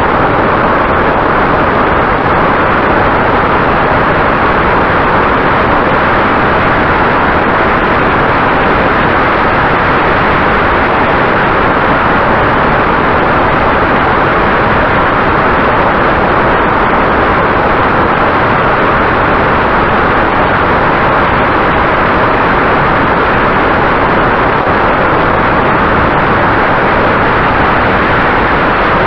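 Steady, loud rushing noise of a vehicle travelling at about 108 km/h, wind and running noise together, with a faint steady hum beneath.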